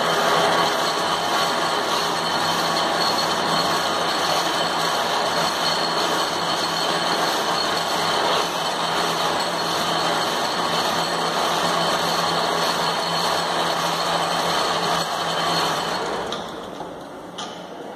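Metal lathe running, turning and facing a long steel shaft: a steady low hum with a high whine over the cutting noise. It falls away about two seconds before the end.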